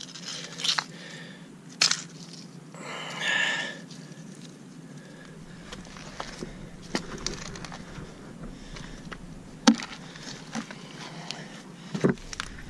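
Scattered small clicks and knocks of footsteps and handling on wet shoreline rocks and seaweed, with a short scraping rustle about three seconds in.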